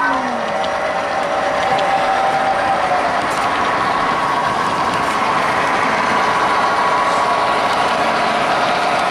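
Model freight train of covered hopper cars rolling past, a steady noise of metal wheels running on the rails, with a faint steady tone beneath it.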